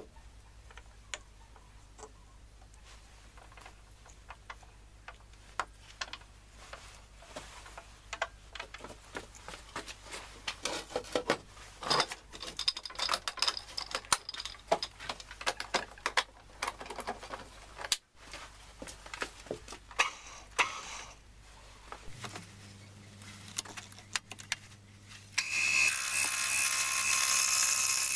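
Scattered clinks and knocks of steel tooling and lathe fittings being handled while a wooden blank is set up on a metal lathe. About three quarters of the way through, the lathe's motor starts with a low hum, and a few seconds later a loud, steady rushing noise with a high tone sets in as the spinning wood blank is turned.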